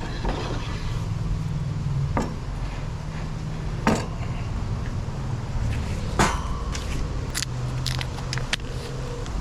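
Wind buffeting the microphone as a steady low rumble. A few sharp knocks come about 2, 4 and 6 seconds in, then a quick run of clicks near the end.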